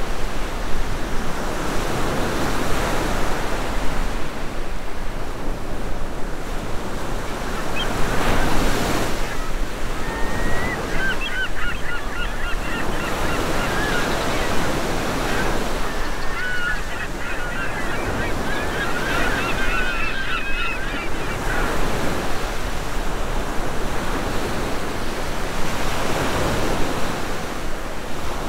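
Sea waves washing in, swelling every few seconds. Through the middle of the stretch, birds call repeatedly for about ten seconds over the surf.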